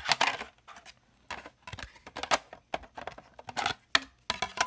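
A run of short plastic clicks and taps from a DVD disc being handled at a portable DVD player with its disc compartment open for loading.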